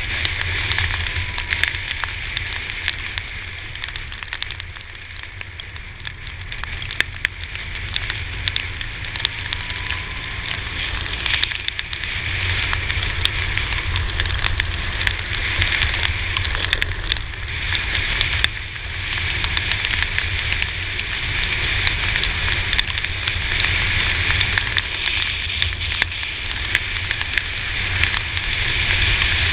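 Raindrops crackling and ticking on the camera over a steady low wind rumble from a Yamaha T-Max 530 maxi-scooter riding through a downpour.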